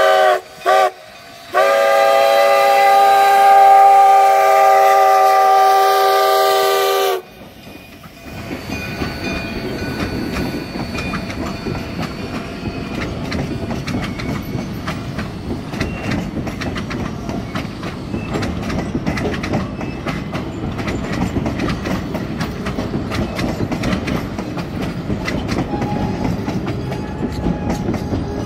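Steam whistle of narrow-gauge K36 locomotive 487 sounding a short blast and then a long blast at a grade crossing. The long blast cuts off about 7 seconds in. After that, the passenger coaches roll past with a steady rumble and quick clicks of the wheels over the rail joints.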